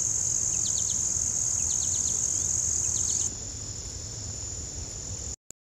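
Crickets trilling in summer woods: one steady, high-pitched drone. It drops in level a little past halfway and cuts off suddenly just before the end. Three small clusters of quick, short chirps sound over it.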